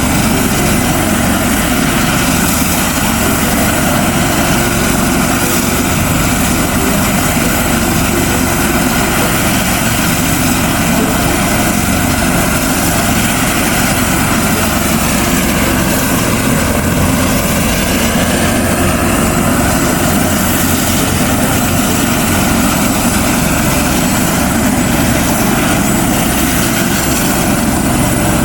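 Helicopter engine and rotor running steadily, a loud continuous drone.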